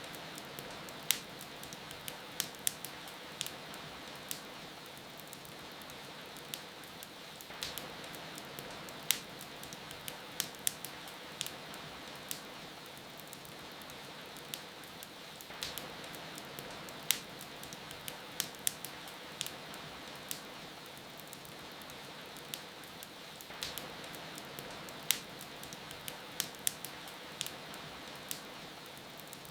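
Steady rain with a wood fire crackling, sharp pops scattered irregularly over the even hiss of the rain.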